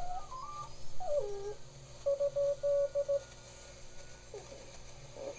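Two-tube 1T4/3V4 regenerative shortwave receiver being tuned across the 40-meter band: Morse code tones keyed on and off, and whistles that slide in pitch as the dial moves through signals.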